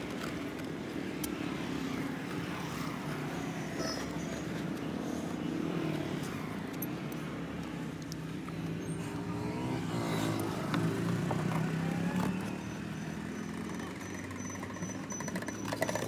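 A vehicle engine running at a steady idle, its pitch rising and falling briefly about nine to ten seconds in, with scattered light clicks.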